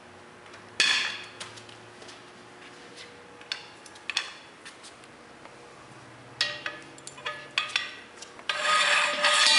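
A steel tire-demounting bar knocking and scraping against a truck tire and its steel wheel rim as the tire is pried off. Scattered sharp knocks and clicks come first, then a denser run about two thirds of the way in, and the sound grows louder near the end.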